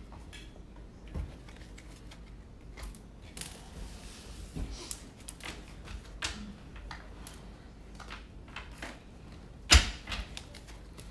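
Tarot cards being handled and shuffled: scattered light clicks and rustles, a brief run of hiss about four seconds in, and one sharp knock near the end.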